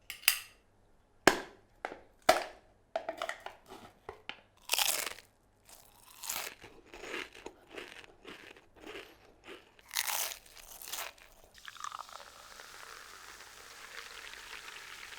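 Potato chips being crunched and chewed close to an on-camera shotgun microphone, a string of short sharp crunches, then a fainter steady hiss for the last few seconds.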